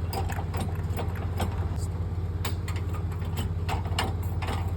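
Car engine idling steadily, with scattered light clicks and taps over it.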